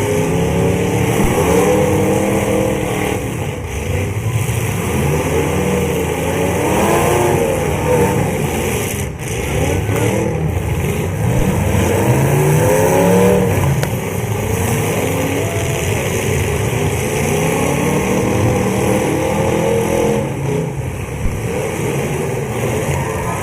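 Several full-size demolition derby cars' engines revving up and down at once, loud and continuous, their pitches rising and falling over one another.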